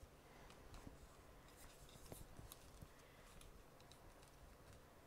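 Near silence, with faint rubbing and scattered small clicks: a headset ear pad being worked by hand onto its plastic ear cup, its plastic rim being pressed into the cup's groove.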